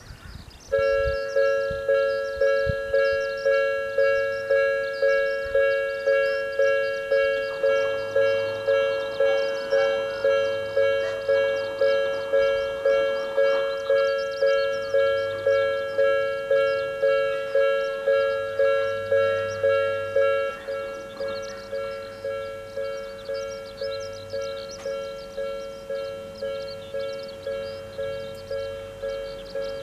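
Electronic railway level-crossing warning bell ringing a two-tone ding, about one and a half strikes a second. About 20 seconds in it becomes quieter but keeps ringing.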